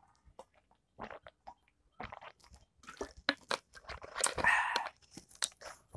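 Close-up mouth sounds of drinking water from a plastic bottle: gulps and swallows, then scattered small clicks and smacks of the lips and mouth, with a louder rush of noise about four seconds in.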